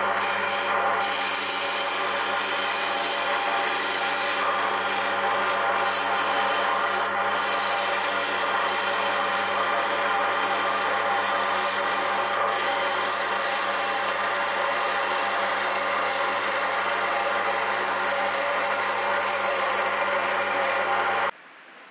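Wood lathe spinning a wooden ballpoint pen blank on its mandrel while a hand-held turning tool cuts it: a steady scraping cut over the hum of the lathe. It cuts off suddenly near the end.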